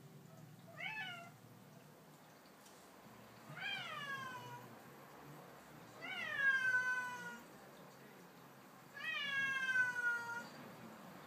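Domestic cat meowing four times: a short call about a second in, then three longer meows, each falling in pitch, the last two the loudest. These are demand meows of a cat at the door begging to be let out for a walk.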